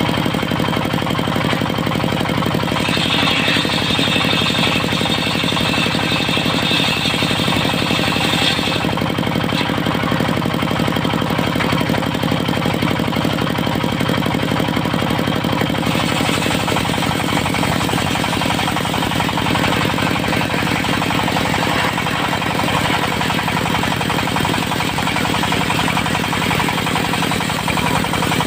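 Diesel engine driving a circular-saw sawmill runs steadily with a fast knocking beat. A higher, rasping saw sound joins in from about 3 to 9 seconds and again from about 16 seconds on, as the blade cuts mahogany.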